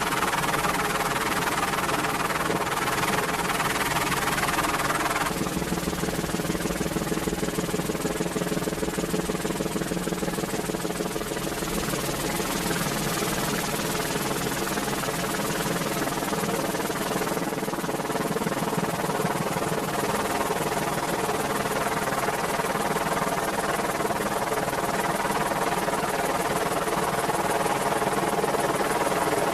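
Merlin helicopter running steadily, its rotors and three turboshaft engines making a continuous drone with a fine rapid flutter. The tone shifts about five seconds in.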